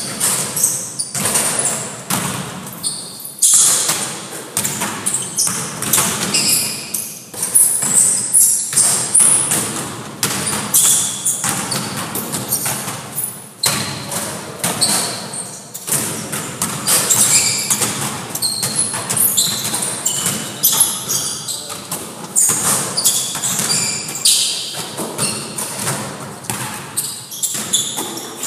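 A basketball thudding again and again on a gym floor and off the rim and backboard during shooting drills, echoing in the hall.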